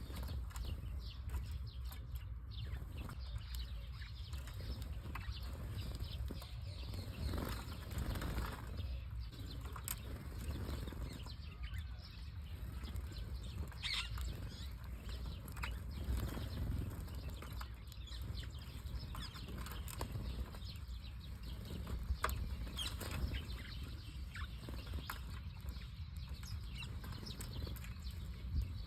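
Bird wings flapping and rustling in scattered short bursts, over a steady low rumble.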